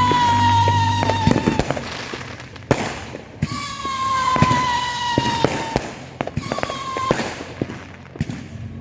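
Consumer fireworks going off in a rapid series of bangs and pops, with long whistling tones that each slide slightly down in pitch, three times.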